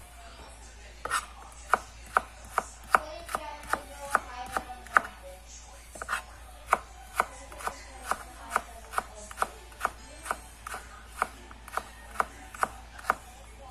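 Kitchen knife slicing chayote into thin strips, the blade knocking on a plastic cutting board about twice a second. The knocks begin about a second in, with a short pause near the middle.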